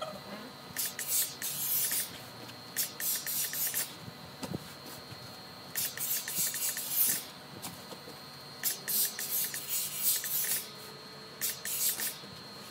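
Hose-fed professional steam iron letting out steam in short hissing bursts while a T-shirt is ironed, five bursts of about a second or two each. A steady faint high-pitched tone runs underneath.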